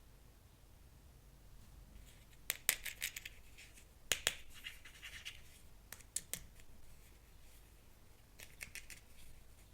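Toy packaging and small plastic toy parts being handled: clusters of sharp clicks with crinkling and rustling, about two and a half seconds in, around four seconds, around six seconds and again near the end.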